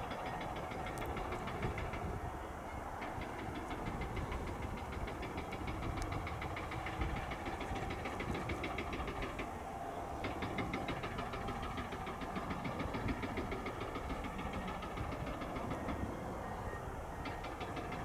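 Engine of an aircraft tow tractor running steadily with a fast, even ticking clatter.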